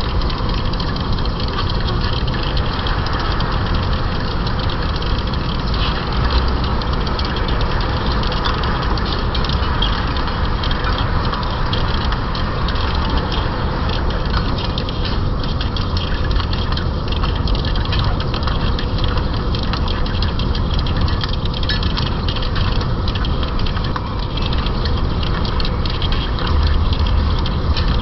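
Metal lathe running steadily while turning down a journal on a 40Kh alloy-steel shaft.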